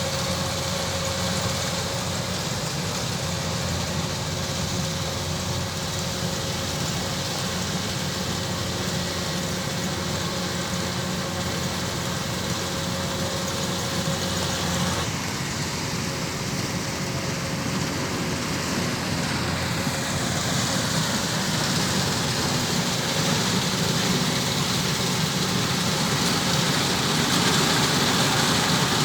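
Kubota DC-105X rice combine harvester running steadily, its diesel engine drone mixed with broad machinery noise. The sound changes abruptly about halfway through and grows louder near the end.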